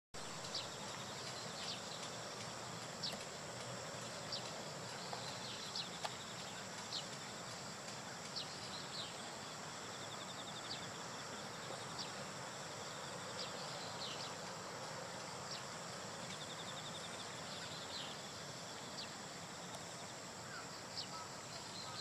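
Short, sharp, high-pitched bird calls, roughly one every second or so, over steady outdoor background noise with a constant high hiss and, at times, a faint rapid trill.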